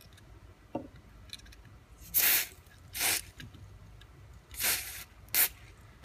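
Aerosol contact cleaner hissing out through an extension straw into a rotary dial encoder to degrease and clean its contacts. Four short sprays, starting about two seconds in; the first and third are longer.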